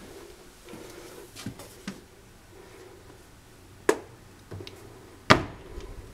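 Small knocks and footfalls, then two sharp knocks about four and five seconds in, the second the loudest with a low thud, as a wooden door is pushed open.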